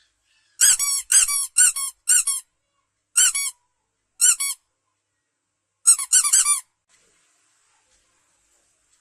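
A series of short, high-pitched squeaks, each rising and falling in pitch: four in quick succession, two single ones, then a quick cluster about six seconds in.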